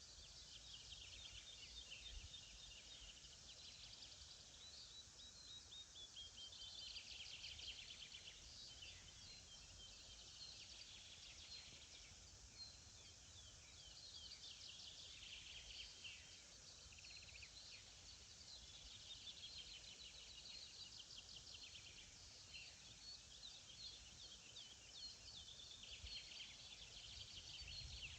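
Several songbirds singing at once, faint: overlapping high chirps, trills and quick rising and falling phrases that go on without a break, over a low rumble.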